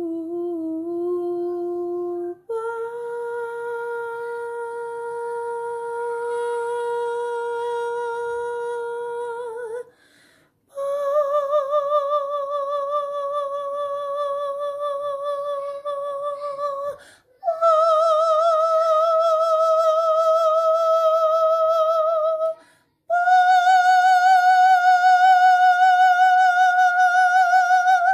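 A single voice humming long held notes in a sound-healing toning: five sustained tones of several seconds each, broken by short breaths, each note pitched higher than the last. The later notes carry a wavering vibrato.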